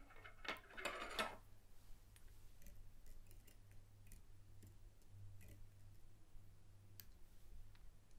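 Near silence over a low steady hum, with a short rustle of handling about half a second in and a few faint single clicks of small fly-tying scissors being brought up to the fly in the vise.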